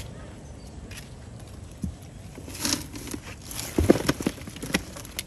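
Live snakehead and catfish slapping and splashing in shallow water in a styrofoam box, mixed with knocks of the box being handled. There are a few sharp slaps and splashes in the second half, the loudest a little before the end.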